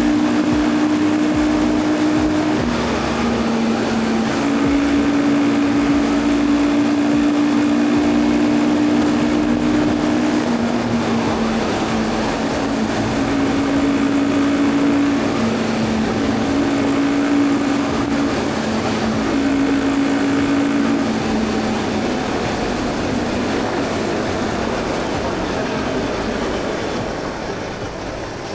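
Royal Enfield Guerrilla 450's single-cylinder engine running at a steady highway cruise under heavy wind rush on the microphone, with a few steady droning tones that come and go.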